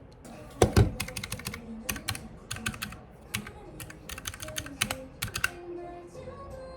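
Quick runs of light, sharp clicks and taps, like typing on a keyboard, with two heavier knocks about half a second in.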